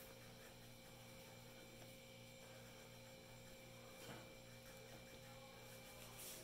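Near silence: a faint, steady electrical mains hum in the room.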